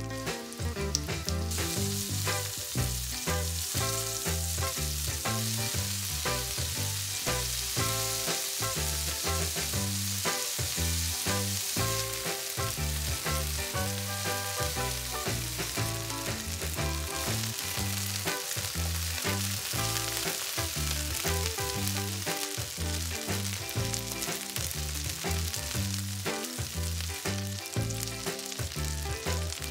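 Chicken pieces sizzling steadily as they sear in hot oil in a nonstick skillet, turned now and then with tongs. Background music with a steady beat plays underneath.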